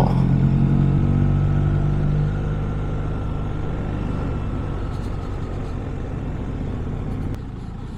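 Motorcycle engine running while riding along a lane. The engine note is strongest at first and falls away about two seconds in as the rider eases off.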